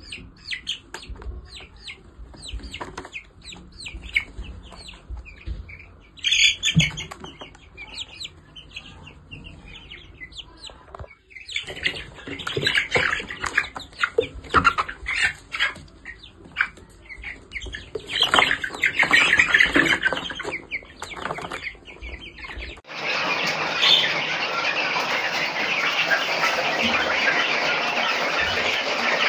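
Young Noiler chickens peeping and cheeping, many short high calls overlapping, with a louder burst about a quarter of the way in. For the last several seconds the sound turns into a dense, steady wash.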